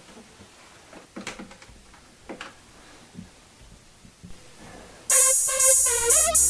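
A few faint clicks, then about five seconds in a loud electronic ringtone suddenly starts playing: a harsh synthesized beat of buzzy tones with a hissing high edge.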